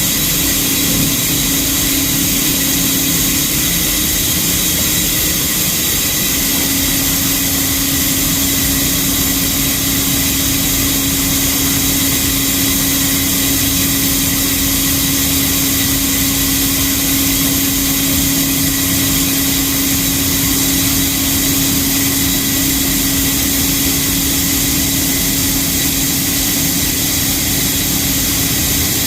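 John Deere 5075E tractor's diesel engine running steadily while the tractor drives along the road at about 30 km/h. A constant hum in the engine noise grows stronger about six seconds in.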